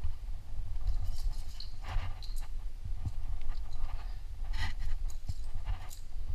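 Hands and climbing shoes scuffing, scraping and tapping against the rock in irregular short strokes as a climber moves up an overhang, over a steady low rumble on the body-worn camera's microphone.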